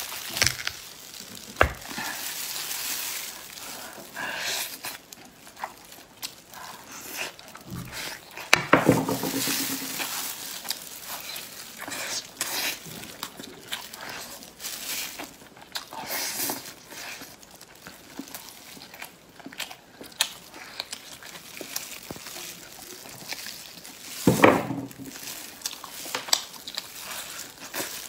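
Close-miked eating of roasted spare ribs by hand: meat tearing off the bone, chewing and mouth sounds, with disposable plastic gloves crinkling. Short clicks and rustles come throughout, with a brief voice-like sound twice.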